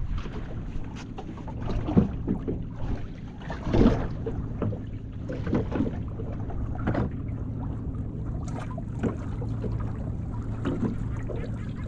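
Small open fishing skiff on the water: a steady low hum from the idling outboard motor, water slapping at the hull and a few scattered knocks.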